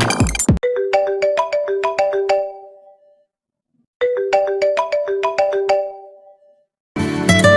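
A mobile phone ringtone: a short melody of quick, struck-sounding notes, about four or five a second, played once and then repeated after a pause of about a second.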